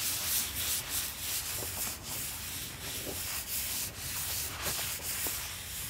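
Paper towel wiping oil over a steel fire plate (griddle plate), a rubbing swish that swells and fades with each stroke: the plate is being oiled and seasoned before grilling.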